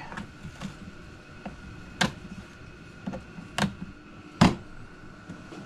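A sharp knife cutting the mesh out of a Jeep door pocket: scattered small clicks and three sharper snaps, the loudest about four and a half seconds in, over a faint steady hum.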